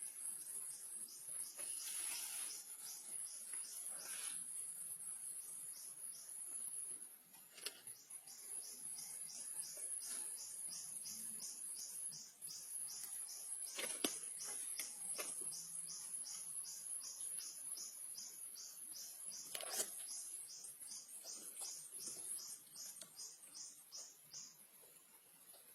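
Insects calling: a steady high-pitched drone, joined by a regular chirping at about two or three chirps a second, with a couple of sharp clicks.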